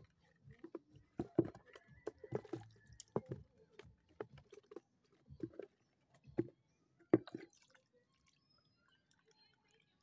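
Small water splashes and drips, a string of short irregular sounds that stops about seven and a half seconds in.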